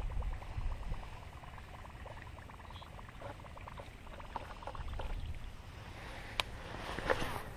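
Baitcasting reel being cranked to retrieve a lure across the water, with soft irregular clicking, one sharp click about six seconds in and a short rustle near the end.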